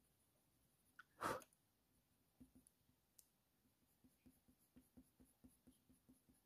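Near silence: faint, quick strokes of a coloured pencil on hot-press paper, about four a second in the second half, and one brief, slightly louder sound about a second in.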